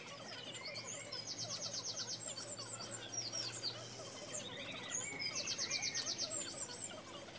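Birds chirping, with a fast, high trill twice: about a second in and again near six seconds.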